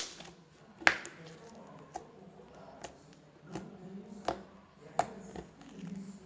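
Green slime being squeezed and stretched by hand, giving a series of sharp clicks and pops about once a second, the loudest right at the start.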